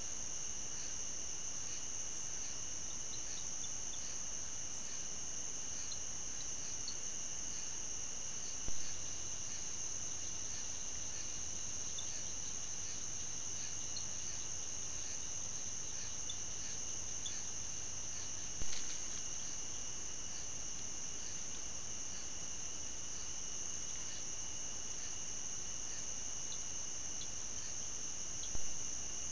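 Steady high-pitched chorus of night insects chirping, with a short knock three times, about ten seconds apart, where the trail-camera clips are joined.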